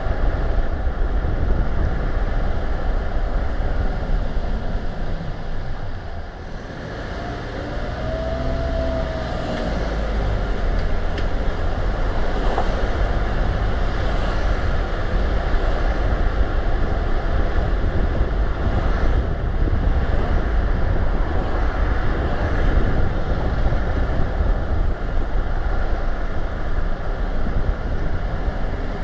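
Car driving along a road: steady tyre and engine rumble that eases briefly about six seconds in. A faint whine rises and falls around eight seconds in.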